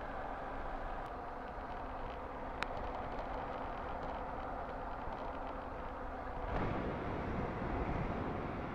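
A vehicle engine running steadily, with a single click about two and a half seconds in; about six and a half seconds in, a louder rush of noise joins it.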